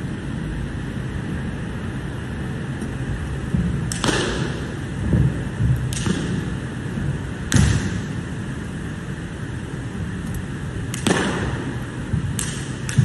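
Sharp slaps and snaps from a changquan wushu performer's kicks and strikes, about half a dozen spread out, each ringing briefly off the hall's walls, with dull thuds of footfalls and landings on the mat between them, over steady room noise.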